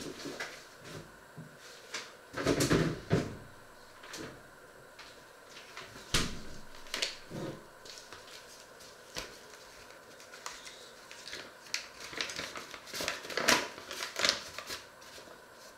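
Scattered knocks and clatter of someone moving about a kitchen, with quiet gaps between. There is a group of knocks a couple of seconds in, a few single ones in the middle, and a busier run of clatter near the end.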